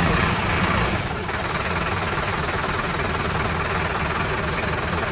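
Vehicle engine running steadily with a rough, noisy rumble: a dubbed-in truck engine sound effect.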